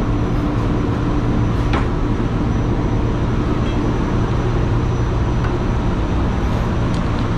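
Steady drone of a tanker's machinery, with a low, even hum under a wash of noise and a couple of faint clicks.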